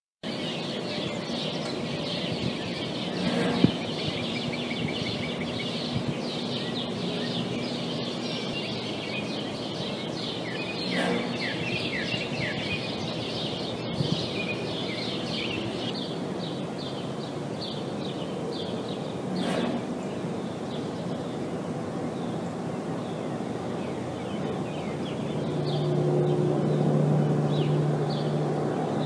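Birds chirping over a steady outdoor background, with one sharp knock about three and a half seconds in and a few softer knocks later. A low steady hum comes up near the end.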